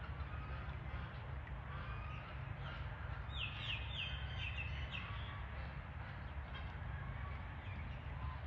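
Farmyard birds calling over a steady low rumble: faint poultry calls, and a quick run of high chirps about three to five seconds in.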